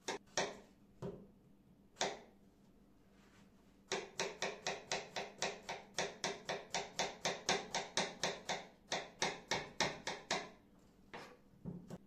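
Kitchen knife chopping on a wooden cutting board, cutting onion and potato: a few single cuts, then a fast, even run of about five cuts a second with a short break, and a few more cuts near the end.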